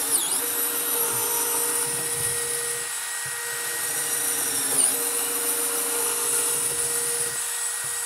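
DeWalt 12V Xtreme hammer drill in drill mode on speed one, running steadily under load as a twist bit bores holes through a wooden board. The motor note dips and thins briefly a few times as the bit loads up and breaks through.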